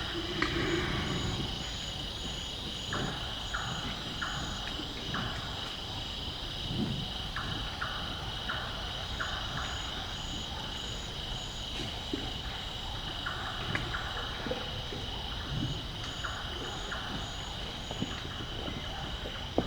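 Night forest chorus: a steady high insect drone and a pulsing higher insect trill, with frogs calling in runs of short notes. Scattered soft low knocks sound beneath.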